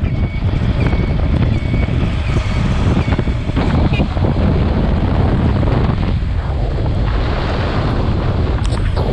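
Heavy wind buffeting the microphone of a moving motorbike in the rain, a steady loud rush. Short faint chirps repeat a little under twice a second through the first four seconds.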